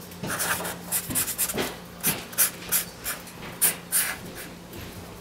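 Felt-tip marker scratching and squeaking across paper in a quick run of short, uneven strokes, fading out near the end.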